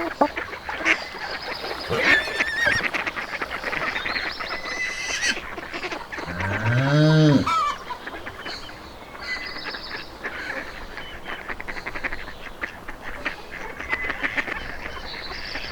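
Farmyard animals calling in the morning: a continuous chatter of short bird calls, with one long low call that rises and then falls in pitch about six seconds in, the loudest sound.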